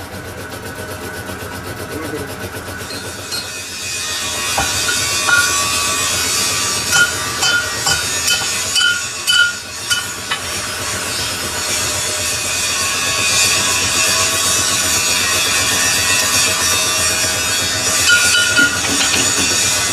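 Lathe cutting a metal silage-machine head roller: the tool runs with a steady hiss against the turning metal, with high-pitched squeals on and off several seconds in and again near the end. A regular pulsing machine hum sits under it at the start.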